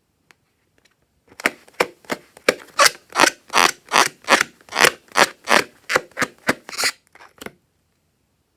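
Rhythmic rubbing strokes, about three a second, starting after about a second and a half and stopping about six seconds later.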